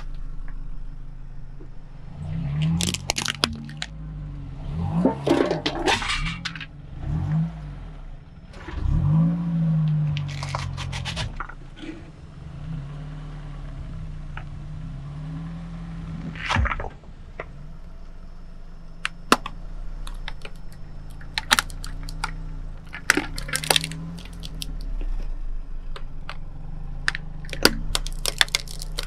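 A car's engine running at low speed, its pitch rising and falling as the car creeps forward, while the tyre crushes objects with crunching, cracking and squelching sounds. There are several crunches in the first half, one loud crack past the middle, and a run of sharp snaps and clicks near the end.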